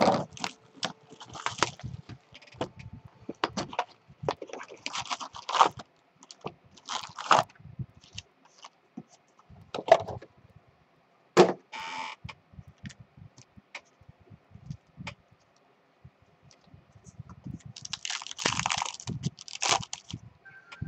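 Hands handling a cardboard box of trading-card packs and setting the foil packs down: scattered rustles, taps and scrapes. Near the end, a longer crinkling as a foil card pack is torn open.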